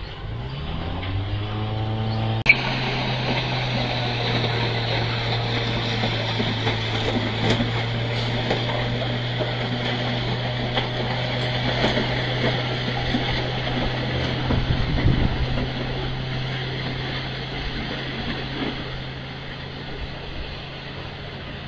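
Diesel engine of a rail track maintenance machine revving up over the first two seconds or so, then running at steady high revs as the machine travels along the line, fading somewhat near the end. A sharp click about two and a half seconds in.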